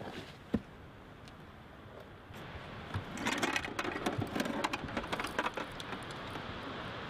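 Small metallic clicks and rattling with rustling from handling a belt-fed machine gun and its cartridge belt. There is a single sharp click about half a second in, and the clicking and rustling thicken from about two and a half seconds on.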